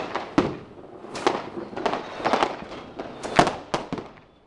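Fireworks going off: about a dozen sharp bangs and cracks at uneven intervals, the loudest about three and a half seconds in, over a steady background of more distant fireworks.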